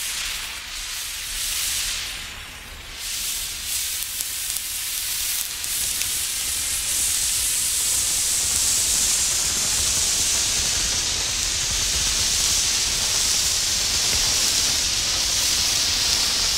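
Burning emergency road flare hissing. The hiss wavers at first and then settles into a strong, steady, high hiss from about six seconds in.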